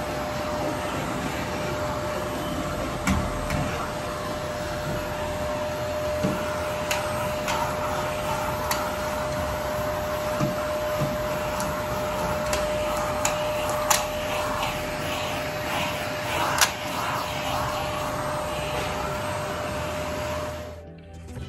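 Canister vacuum cleaner running with a steady whine, with occasional light knocks as its brush nozzle is worked over the wall. It cuts off about a second before the end.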